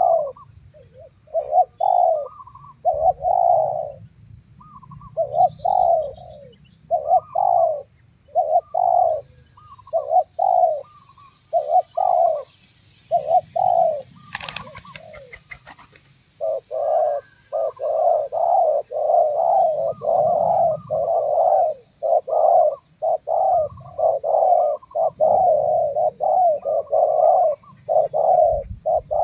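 Spotted doves (tekukur) cooing in a long run of short, repeated coos. Around halfway the coos pause briefly for a short rattle of clicks, then resume almost without gaps.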